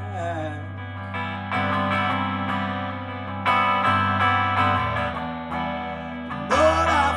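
Hollow-body electric guitar strummed through an amp, held chords changing every second or two in a break between sung lines. The singing voice comes back near the end.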